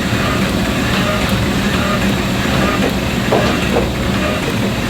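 Kkultteok (honey-filled rice cake) machine running steadily, with a constant mechanical hum.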